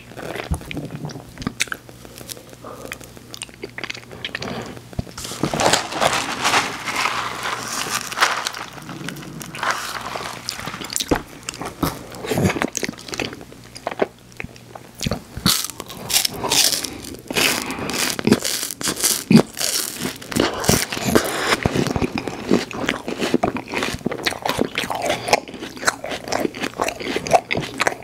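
Close-miked eating of a soft-serve ice cream in a wafer cone: repeated bites and crisp crunching of the cone, with chewing and mouth sounds. The crunching comes thicker and sharper in the second half.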